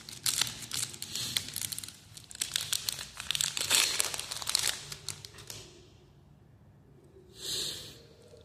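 Plastic trading-card pack wrapper crinkling and tearing as it is opened, a dense crackle for about six seconds. One short soft rustle follows near the end.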